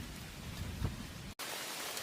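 Rain falling steadily. A low rumble with one short scrape about a second in cuts off abruptly, and an even rain hiss follows.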